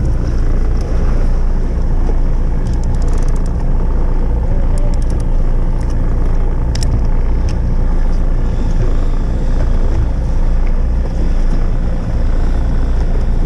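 A boat engine running steadily with an even low hum. A few light clicks sound a few seconds in.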